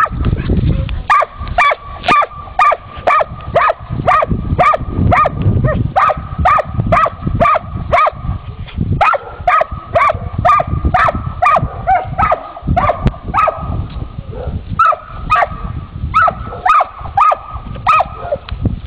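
A dog barking over and over in a steady rhythm, about two barks a second, with a break of a couple of seconds about two-thirds of the way through, over a low rumble of noise.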